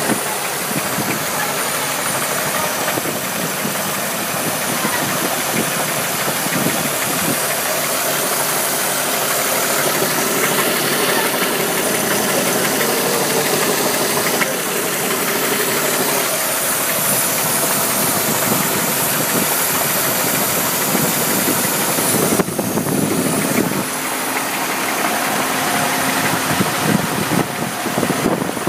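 Chevrolet Impala's 3.8-litre V6 running at idle with a knocking noise that an oil change has not cured and whose cause the owner has not found.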